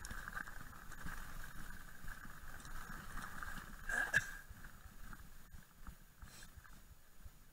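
Mountain bike rolling down a rocky dirt singletrack: tyres on loose gravel and the bike's frame rattling. There is one short sharp sound about four seconds in, and the noise gets quieter towards the end as the bike slows.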